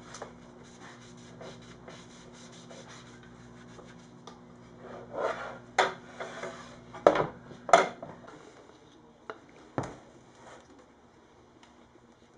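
A rag rubbing over the wooden guitar body in quick, repeated strokes, wiping hide glue squeeze-out from around the clamped neck-to-body joint. About five to eight seconds in come a few loud knocks of wood and the metal clamp as the clamped guitar is handled and tipped up on its edge, with one more knock near ten seconds.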